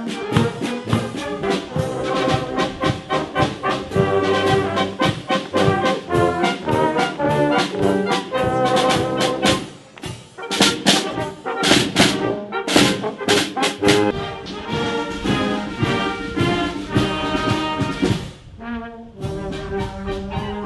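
Brass marching band playing a march: trombones, trumpets and tuba over regular bass drum beats, with a short break near the end.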